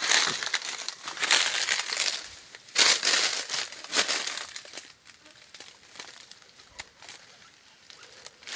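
Crunching and rustling of dry leaves and grass underfoot, in irregular bursts for the first four seconds or so, then dying down to a few faint ticks.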